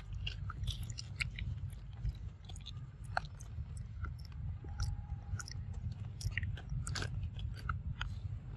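Macaque chewing food, heard as rapid, irregular crisp clicks and crunches over a steady low rumble.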